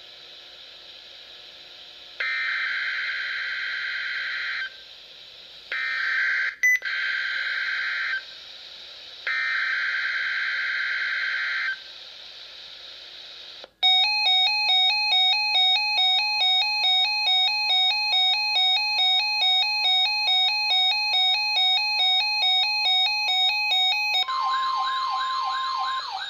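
NOAA Weather Radio test signal over radio hiss: three bursts of the raspy SAME digital header data tone, each about two and a half seconds with short pauses between. About fourteen seconds in, a loud electronic alert starts, warbling in a fast repeating pattern about twice a second, and near the end it gives way to a steady alert tone with siren-like rising sweeps.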